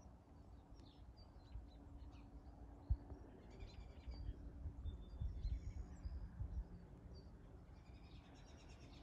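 Faint, scattered bird chirps over a low rumble on the microphone that comes and goes, with one sharp thump about three seconds in.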